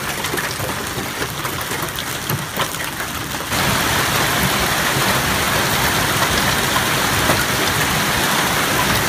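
Hailstorm: hailstones and rain falling hard, a dense hiss full of small sharp ticks. About three and a half seconds in it becomes louder and heavier.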